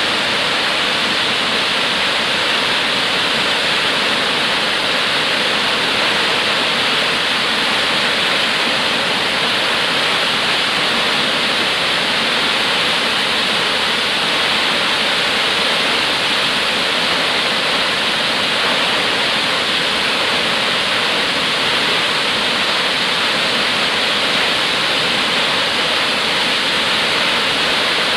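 Wallace Falls, a tall waterfall, with its water falling and rushing in a steady, unbroken hiss.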